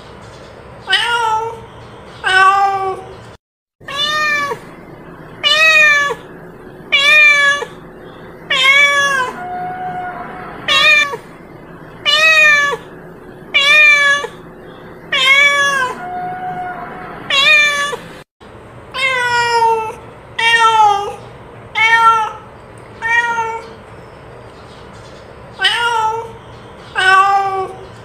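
A domestic cat meowing over and over, roughly one meow every second or so, each meow rising and then falling in pitch. A few softer, longer, lower meows come in the middle, and the sound cuts out abruptly twice, at the edits between recordings.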